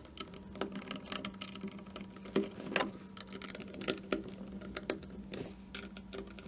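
Scattered light clicks and taps over a steady low hum, with a few louder knocks a little past the middle.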